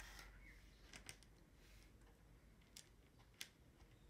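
Small acrylic jigsaw puzzle pieces clicking lightly against each other and the wooden tray as they are fitted in by hand: about four faint, sharp ticks, two close together about a second in and the others near the end.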